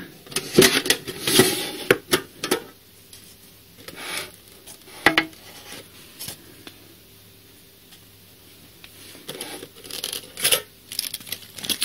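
Thin sheet-metal collectible tin being opened by hand: a quick run of metallic clicks and rattles as the lid is worked loose, a couple of single knocks, then more scattered clicks and rustles near the end as hands reach into the open tin.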